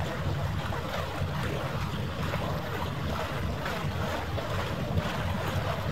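Steady rushing of wind on the microphone over harbour water, an even noise with no distinct events.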